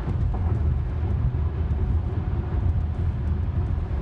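Steady low road and tyre rumble inside the cabin of a Tesla electric car cruising at highway speed, with no engine sound.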